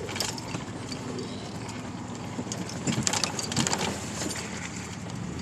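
Chevy Blazer driving a rough off-road trail, heard from inside the cab: a steady low engine hum with knocks and rattles from the body as it bumps along, bunched a little past halfway.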